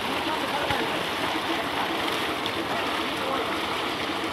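Tubewell water gushing steadily from a steel outlet pipe into a concrete bathing tank, the jet splashing into the pool.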